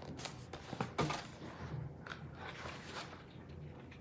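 Paper booklet being handled and its pages turned: rustling and crinkling paper, with a few sharp clicks in the first second.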